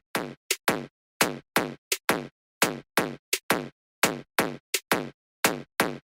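Cleaver chops into chicken on a cutting board, falling in a steady repeating beat of about three sharp strikes a second with dead silence between them.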